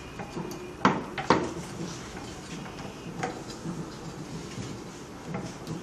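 Hands pressing the edge of a new silicone cover into the frame of a 3D vacuum heat press plate: two sharp clicks about a second in, then faint taps and handling noise.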